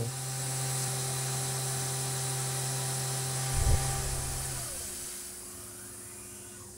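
Tormach CNC mill's spindle turning a 1.5-inch three-flute Stellram face mill at 8,000 RPM on a light 5-thou finishing pass, under a hissing coolant mist: a steady hum with a higher tone over the hiss. A low thump about three and a half seconds in, then the sound fades away.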